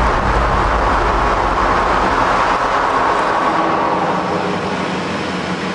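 Hypersonic wind tunnel firing: a Mach 6 jet of air rushing through the test section with a loud, steady rushing noise. Its low rumble drops away about four seconds in.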